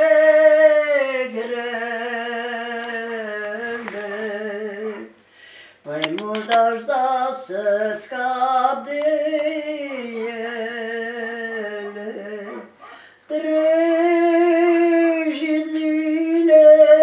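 A woman singing unaccompanied in a slow folk style, long held notes with a wavering vibrato. She breaks off briefly about five seconds in and again near thirteen seconds.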